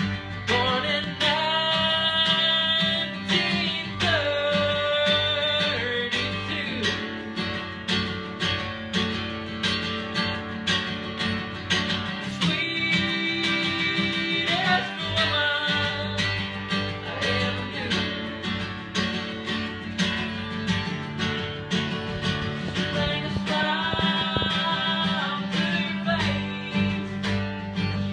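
A man singing while strumming an acoustic guitar, holding several long notes.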